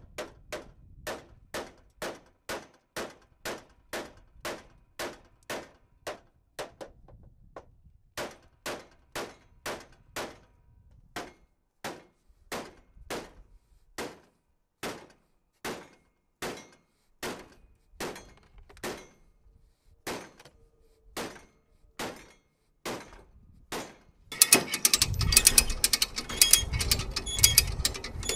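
A hammer striking a car's steel front frame rail over and over, about two to three blows a second with a few short breaks, while a come-along holds the bent beam under tension to straighten out collision damage. Near the end the blows stop and a louder, denser rattling clatter takes over.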